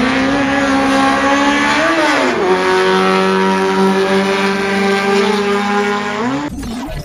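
Classic Mini's four-cylinder engine at full throttle, its note climbing steadily, dropping once with an upshift about two seconds in, then climbing again. The sound breaks off near the end.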